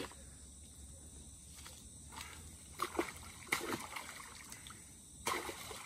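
River water splashing and sloshing in the shallows as a freshly netted fish is dipped in it. There are a few quick splashes about two to four seconds in and another near the end.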